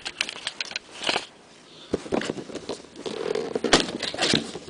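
Cardboard router box being handled and fumbled open: scattered clicks, scrapes and crackles, with one sharper knock about three-quarters of the way through.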